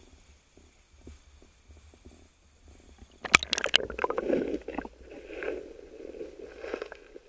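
A spearfisher ducks under the water about three seconds in with a sudden splash, followed by muffled underwater bubbling and gurgling as he swims with the speargun.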